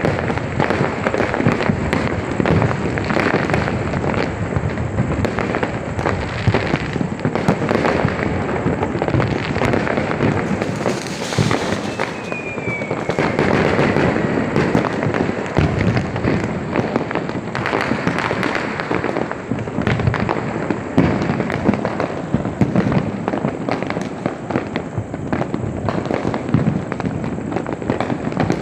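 Dense, continuous crackling of many firecrackers bursting in rapid succession, with a brief falling whistle a little under halfway through.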